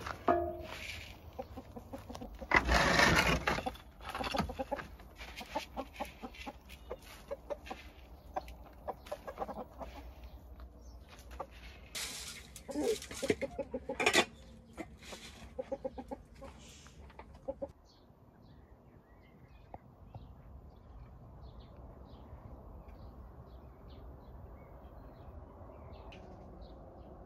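Chickens clucking, with a run of quick repeated clucks near the middle. Before that there is a brief loud noise about three seconds in.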